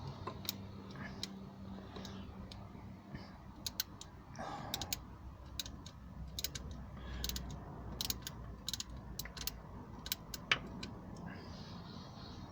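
Irregular light metallic clicks and taps, some in small quick clusters, from a 13mm spanner being worked on a bolt.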